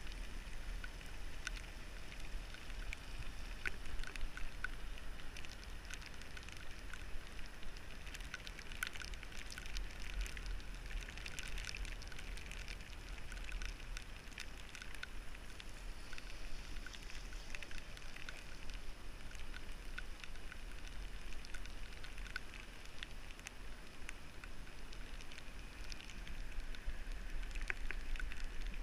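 Steady, muffled rumble of a bicycle rolling along wet asphalt, heard from a camera mounted on the handlebars. Light scattered ticks of raindrops hit the camera throughout.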